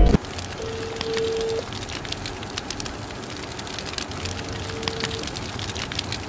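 Crackling fire, a steady hiss full of small pops and snaps. Two steady beep-like tones of about a second each sound over it, the first about half a second in and the second about four seconds in.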